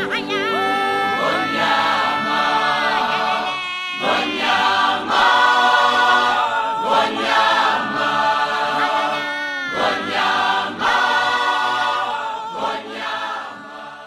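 Choral theme music: several voices singing in harmony, moving through chords together, fading out near the end.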